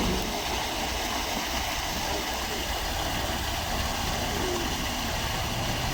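Steady rushing noise with a low rumble underneath, without breaks.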